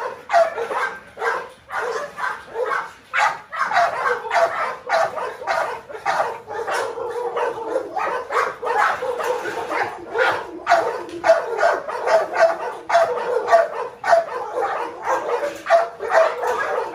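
Dogs barking over and over in a steady run of sharp barks, about two a second.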